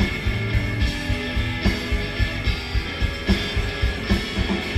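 Live rock band playing, with electric guitars, bass and drums keeping a steady beat, taped by a fan in the audience.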